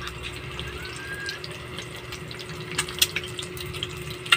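Eggs frying in hot oil in a stainless steel pan: a steady sizzle, with a few sharp clicks now and then, the loudest near the end.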